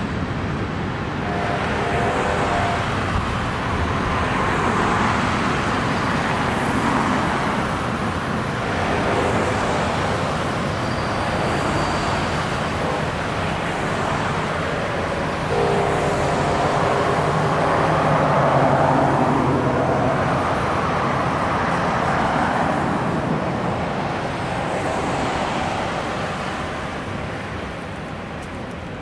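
Cars driving past on a wet street, their tyre and engine noise swelling as each goes by and easing off near the end.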